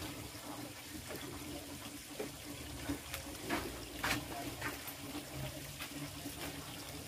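Water running steadily, with a constant low hum and a few sharp clicks midway.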